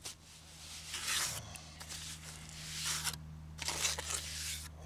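A small steel trowel scraping and pressing stiff cement mortar into holes in an old concrete foundation, in three or four rasping strokes.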